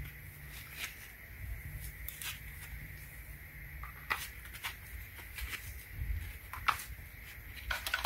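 Alligator clamps of a battery tester being clipped onto the terminals of a 12 V AGM car battery: scattered faint clicks and knocks with cable handling, a sharper click near the end.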